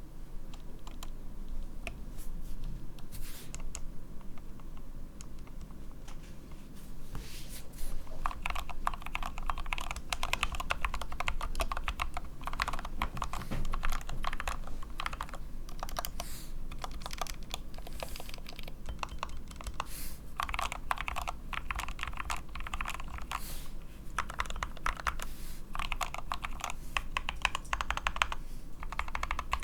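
Typing on a modded SK61 keyboard with Gateron Optical Brown tactile switches lubed with Krytox 205g0, and DSA PBT keycaps. A few separate keystrokes for the first several seconds, then fast, continuous typing in bursts with short pauses.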